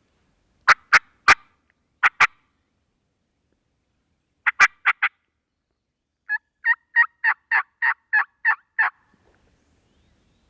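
Turkey clucks and yelps: sharp single notes in small groups of two to four, then a run of about nine evenly spaced yelps in the second half.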